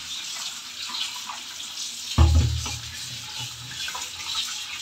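Tap water running into a plastic bowl in a stainless-steel sink while raw pork pieces are rinsed and rubbed by hand in it. A dull, low thump about two seconds in stands out over the steady water.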